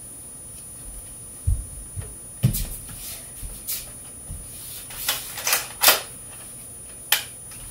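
A few dull footfalls on the floor in the first few seconds, then scattered short rustling and clicking handling noises close to the microphone, the loudest around two-thirds of the way through.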